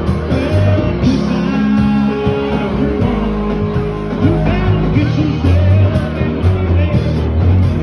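A live rock band playing loudly, with electric guitar and drums.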